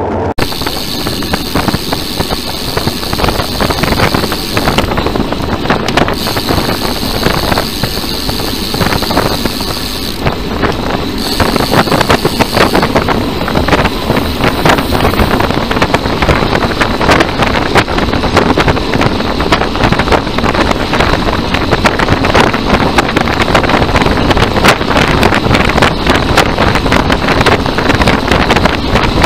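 Wind buffeting the microphone of a camera riding along on a moving road bicycle: a loud, steady rush of noise that grows a little louder about twelve seconds in.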